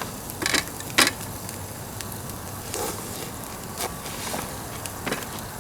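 Pine-wood fire crackling, with a handful of sharp pops over a steady hiss.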